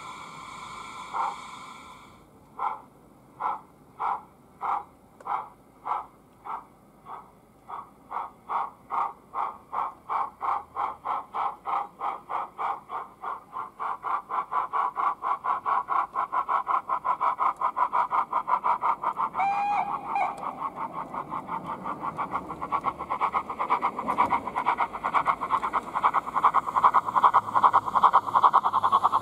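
Steam chuffing from an O gauge model A1X Terrier tank engine. The beats start slow and evenly spaced, then quicken steadily into a fast, even beat as it gets under way. A short whistle sounds about two-thirds of the way through.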